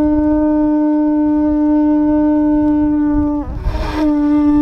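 A conch shell horn blown in one long, steady blast on a single note. About three and a half seconds in it breaks off briefly, then a second blast on the same note starts.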